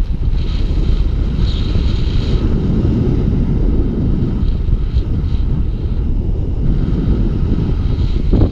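Airflow of paraglider flight rushing over the camera microphone: heavy, steady wind noise with a low rumble.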